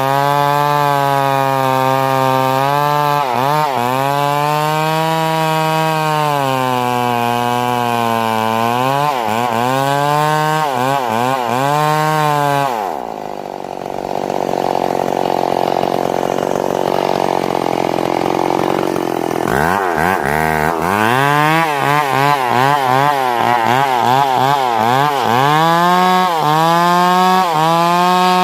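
Two-stroke chainsaw cutting wood at high revs, its engine pitch wavering as the chain bites. About halfway through, the engine drops sharply to a lower, rougher note for several seconds, then revs back up and keeps cutting.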